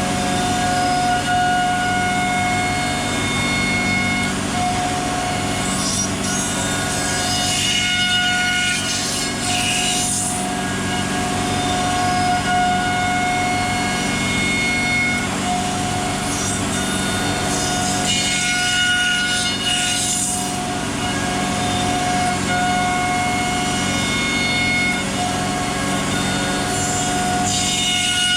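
CNC router milling a wooden chair seat: a steady, loud spindle whine, with a harsher cutting noise that swells about every ten seconds as the bit passes through the wood.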